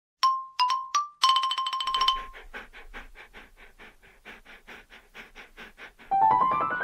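Mallet-percussion music sting. Three struck notes open it, followed by a fast repeated note and a soft ticking rhythm of about five strokes a second. Near the end comes a rising run of xylophone-like notes.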